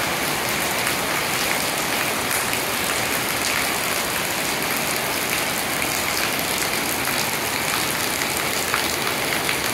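Heavy rain falling steadily on roofs and a yard, a dense even hiss with a fine patter of drops, with water streaming off the eaves.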